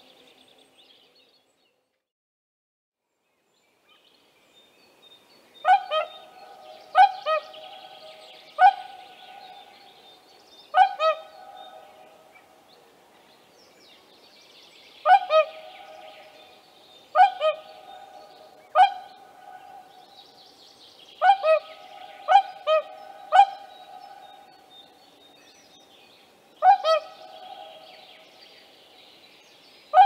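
Whooper swan calling: short, loud, trumpet-like notes, often two in quick succession, repeated every second or two after the first few quiet seconds.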